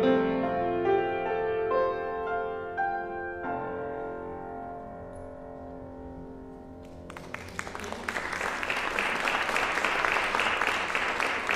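Piano music ending on a held chord that fades away, then applause breaks out about seven seconds in and keeps going.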